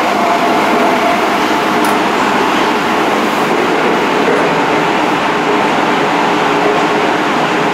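A Yokohama Municipal Subway Blue Line 4000 series train, heard from inside the car as it runs after moving off: a steady rumble of wheels and running gear, with faint whining tones from the drive.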